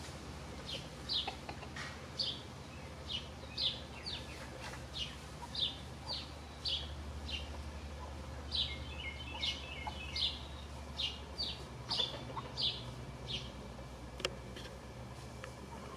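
A small wild bird chirping over and over: short, high, downward-sliding notes about twice a second, stopping shortly before the end. A second, lower run of quick notes comes in briefly around the middle.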